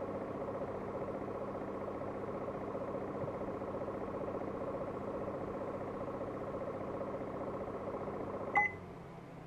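Panasonic F-VC70XJ humidifying air purifier running with a steady hum and a fast buzzing rattle, the abnormal noise from its humidifying moving parts resonating through the body, which the owner takes for an initial defect. Near the end a short electronic beep sounds and the buzzing hum stops, leaving a much quieter hum.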